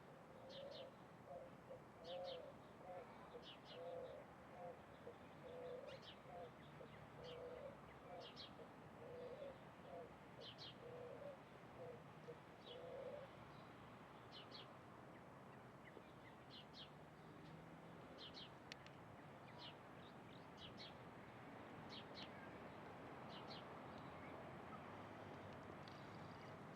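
A dove cooing faintly in a long run of low, evenly spaced notes that stops about halfway through. Short high chirps from a small bird come every second or two throughout.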